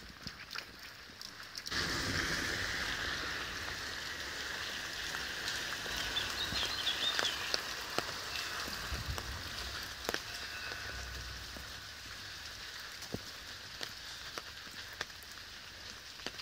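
Rain falling on wet paving: a steady hiss that comes in abruptly a couple of seconds in, with scattered drips ticking.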